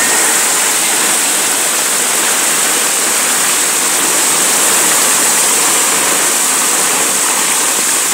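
Heavy rain pouring onto a flooded street: a loud, steady hiss of downpour with no break.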